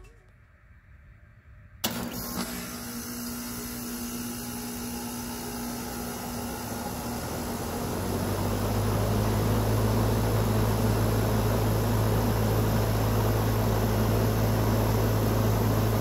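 A four-ton Tempstar heat pump's outdoor unit starting up in heat mode. About two seconds in it switches on suddenly, and its Copeland scroll compressor and fan run with a steady hum. From about eight seconds in the hum grows deeper and louder as the unit comes up to speed.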